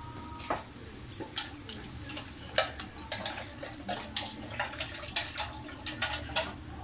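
A spoon clinking and scraping in an irregular run of sharp knocks, two or three a second, with a wet sloshing: potato starch being stirred into liquid to thicken the sauce.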